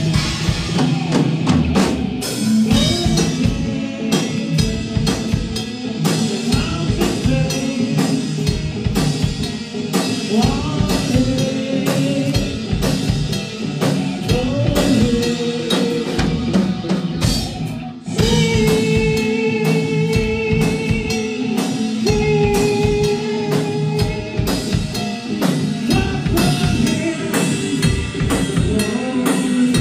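Live rock band playing loud: electric guitars over a pounding drum kit, with sustained guitar notes and a steady beat; the music dips for a moment about eighteen seconds in and carries straight on.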